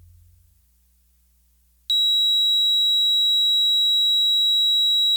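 Piezo buzzer of a home-built security alarm circuit sounding one steady, high-pitched tone that starts abruptly about two seconds in and holds without wavering, after the tail of fading background music.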